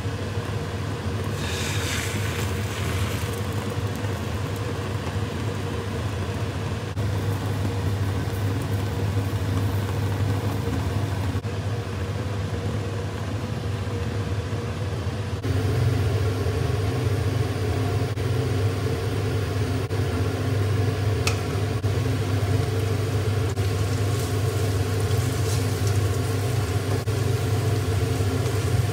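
Steady low mechanical hum of a kitchen fan over a gas stove, with a few brief bursts of sizzling from food frying in a pan. The hum grows louder about halfway through.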